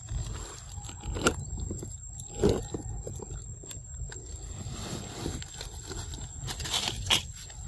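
Low wind rumble on the microphone, with a few short clicks and rustles, the sharpest about a second and about two and a half seconds in, over a faint high steady whine.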